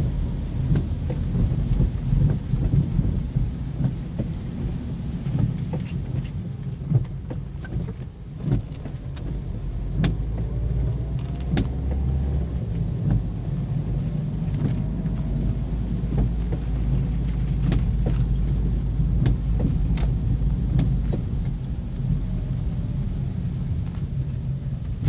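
Steady low rumble inside a car's cabin as it drives slowly on a rain-soaked road, with scattered sharp ticks of raindrops striking the windscreen and roof.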